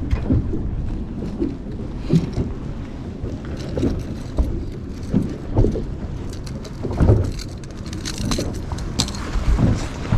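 Choppy water slapping against the hull of a bass boat, with wind and jacket fabric rubbing on the microphone, making a steady rumble broken by irregular thumps.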